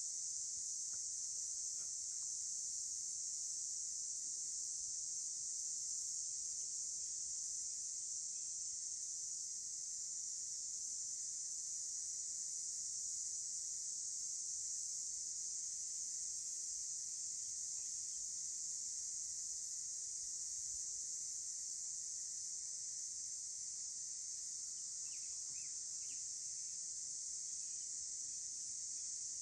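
Steady, unbroken high-pitched chorus of insects in the canyon, with a few faint chirps near the end.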